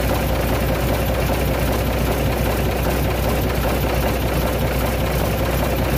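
Isuzu 6BG1 inline-six diesel engine idling steadily, freshly run after a partial overhaul.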